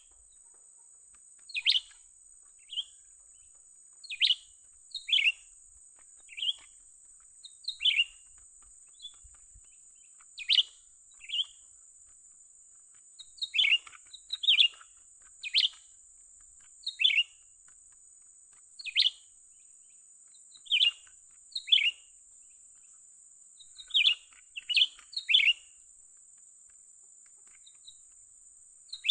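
Cucak ranting birds calling: short, sharp chirps that drop in pitch, repeated every second or two and sometimes in quick pairs or threes, over a steady high-pitched hiss.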